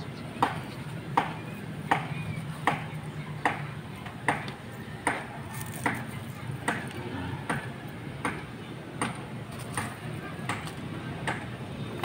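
A steady series of sharp knocks, evenly spaced at a little more than one a second, over a low steady hum.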